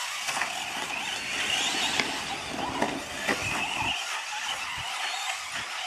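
Radio-controlled off-road trucks running on a dirt track. Their motors whine, rising and falling in pitch, over a haze of tyre and gravel noise. A few sharp knocks come about two and three seconds in as the trucks land jumps and bump over the mounds.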